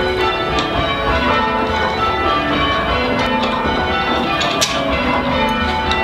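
Church tower bells being change-rung by a band on the ropes: many bells striking one after another in a continuous run of overlapping ringing tones.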